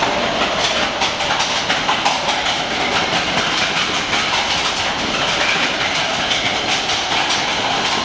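Matterhorn Bobsleds roller coaster car rattling along its steel track, heard from on board: a loud steady rumble full of rapid clicks.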